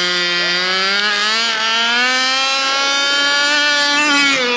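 Brushless electric motor of a large-scale RC car whining at speed, its pitch climbing steadily, then dropping just before the end.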